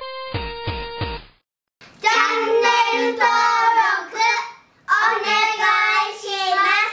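A short music cue of plucked, bell-like notes ends about a second in. After a brief gap, a high child's voice sings two short phrases.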